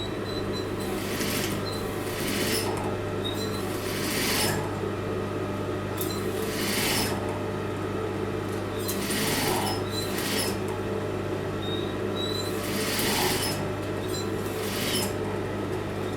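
Electric sewing machine running steadily in normal straight stitch, sewing a zipper onto fabric close to its edge. A continuous hum, with a brief hiss every second or two.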